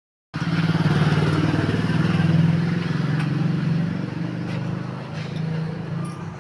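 Electric sewing machine running fast, its needle mechanism stitching in a rapid, steady pulse. It starts abruptly and eases off somewhat in the second half.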